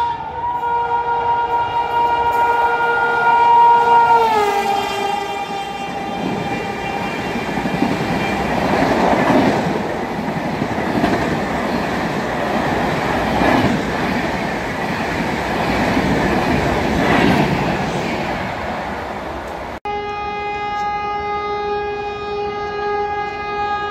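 Express train's locomotive horn blowing as it approaches at speed, its pitch dropping as the locomotive passes about four seconds in. It is followed by the rush and rhythmic clatter of the coaches passing at speed. Near the end it cuts abruptly to a different train horn sounding steadily at a slightly lower pitch.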